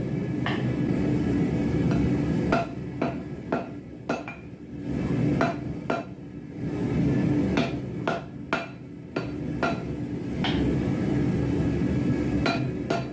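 Hammer blows on hot steel on an anvil, forge-welding a Damascus billet: about fifteen irregular strikes, some ringing briefly, over a steady low rushing noise.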